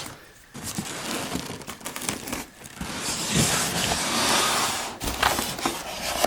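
Packing material in a cardboard box being pulled about and rustled, with crinkling and a few light knocks, loudest about halfway through.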